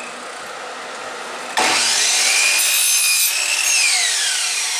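Electric miter saw switched on about a second and a half in, its blade whining up to speed and cutting a thin strip of wood. The trigger is then let go and the blade winds down with a falling whine.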